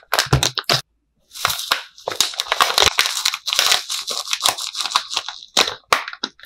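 Crinkly plastic food packet being torn open and handled, a dense run of crackles, then powdered food pouring into a plastic bowl with a hiss, and a few separate clicks near the end.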